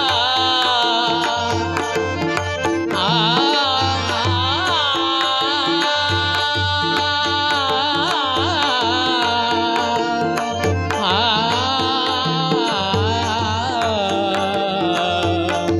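Instrumental interlude in Marathi devotional abhang music: a melody with sliding, wavering notes over a steady hand-drum beat and regular sharp clicks.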